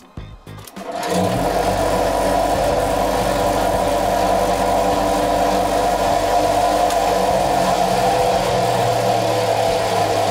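Tokuju all-stainless circular vibrating sieve running empty: a loud, steady mechanical buzzing hum that starts about a second in.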